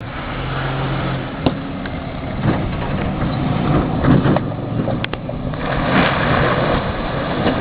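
Nissan Frontier pickup's engine running as it drives through deep mud, with a few sharp knocks and a louder rushing noise about six seconds in.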